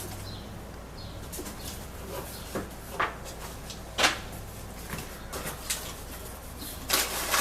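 A mailed package being opened by hand: scattered taps, crinkles and scrapes of the packaging. Near the end comes a dense, continuous rustling or tearing.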